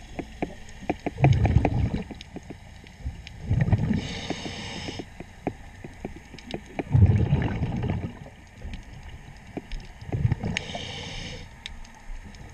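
A diver breathing underwater through a regulator: four rumbling bursts of exhaled bubbles about three seconds apart, with a short hissing inhalation twice, amid scattered small clicks.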